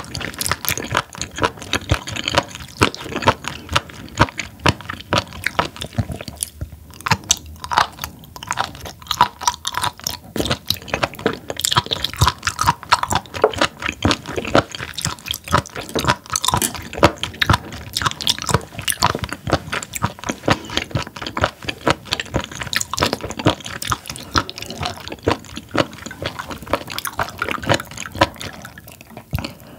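Close-miked, wet, crunchy chewing of raw spoon worm (gaebul), a dense run of quick crisp clicks and squelches. Near the end it gives way to sips from a glass of cola.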